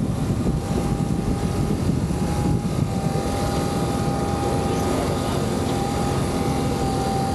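Steady drone of a work boat's engines and deck machinery running, with a high steady whine held throughout and an uneven low rumble underneath.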